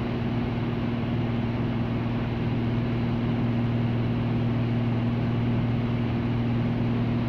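Cockpit drone of a Van's RV-7's UL Power engine and propeller in cruise flight: a steady, even hum with no change in pitch.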